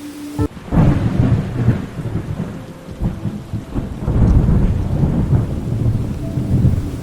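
Thunder rolling over steady rain: a deep rumble that rises about a second in and swells again around four seconds in.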